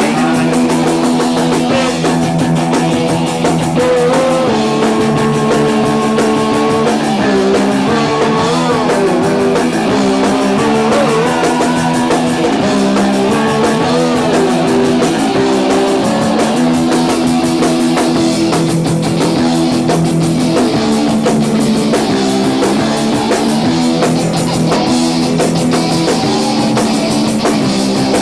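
Punk rock band playing loudly live, electric guitar to the fore.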